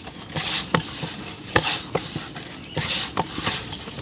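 Hands kneading and squeezing avocado-and-flour dumpling dough in a stainless steel bowl: repeated squishing and rubbing strokes with sharp taps among them.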